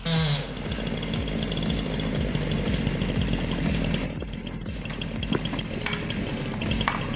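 Forestry machinery running with a loud, fast, steady rattle that starts abruptly.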